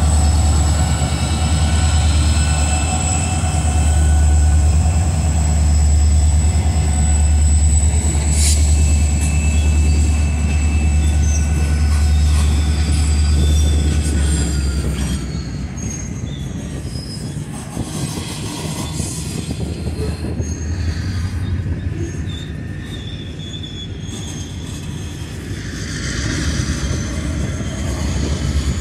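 CSX diesel locomotives passing close by, their engines' low drone dominating for about the first half, then covered hopper cars rolling past more quietly. Steady high-pitched wheel squeal runs over both, with a single sharp clank about eight seconds in and the squealing swelling again near the end.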